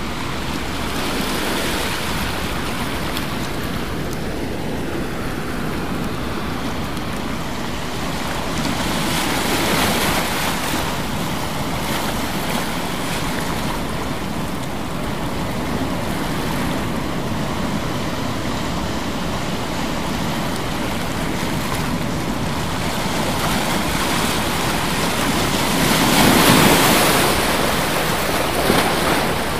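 Steady rushing water noise with no distinct events. It swells about a third of the way in, and louder near the end.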